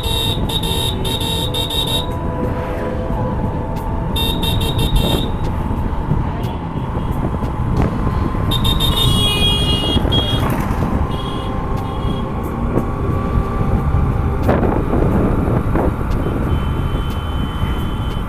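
Motorcycle riding through town traffic: steady engine and road rumble, with the rider's electric horn beeping several times, near the start, around four seconds in and again around nine to ten seconds in.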